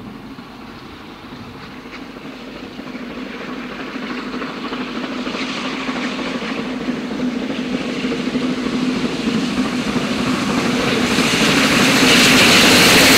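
GWR Castle class 4-6-0 steam locomotive 7029 Clun Castle and its train approaching on the main line, the sound growing steadily louder as it nears, with a sudden step up in loudness near the end as the locomotive passes close by.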